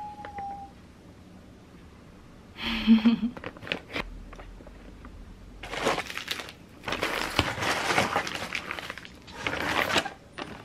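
Plastic food packaging crinkling and rustling as pouches of chicken breast and bags of frozen pork cutlets are handled and spread out, busiest in the second half.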